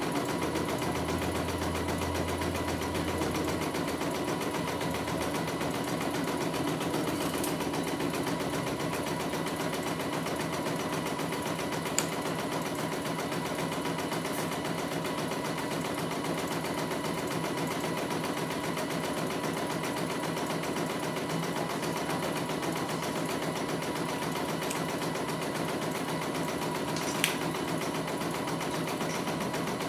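Computerized embroidery machine stitching a test design, its needle running at a steady fast rate. Two sharp clicks come through, one about twelve seconds in and one near the end.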